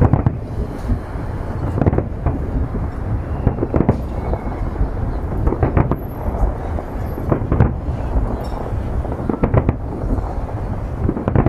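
Aerial fireworks display with shells bursting one after another in an irregular run of sharp bangs over a continuous low rumble of overlapping explosions.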